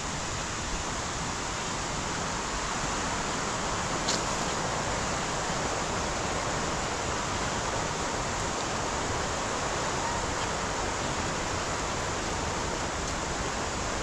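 Waterfall rushing: a steady, even hiss of falling water that grows slightly louder over the first couple of seconds, with a single faint click about four seconds in.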